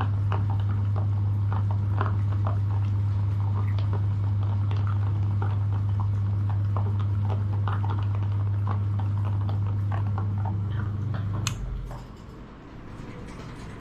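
Electric meat grinder running with a steady low motor hum while jelly is pushed through, with irregular small wet pops and clicks. The motor stops with a click about two seconds before the end.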